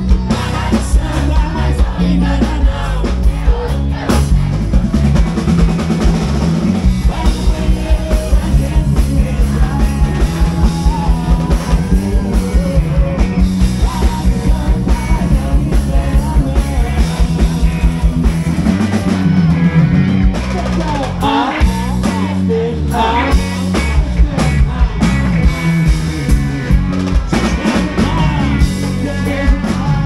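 A live band playing with male singing: a drum kit keeps a fast, steady beat under electric guitars and an accordion. The drums break off briefly about two-thirds through, then come back in.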